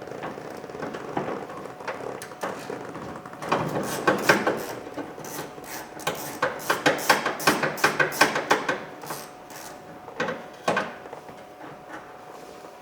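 Ratchet wrench with an 11mm socket and extension clicking in quick runs of several clicks a second as a bolt inside a car door is worked loose, with a few knocks of the tool against the door.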